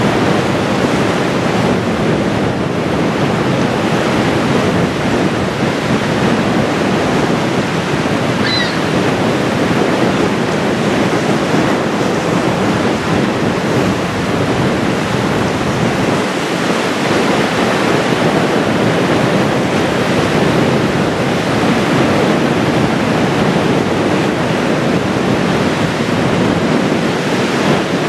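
Strong wind on the microphone over choppy river water washing against a rocky shore: a steady, loud rushing noise.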